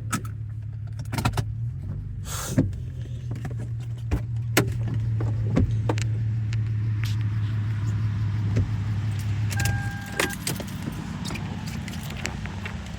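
Car engine idling with a steady low hum and scattered clicks and knocks of handling. About ten seconds in, a short steady beep sounds and the engine hum stops.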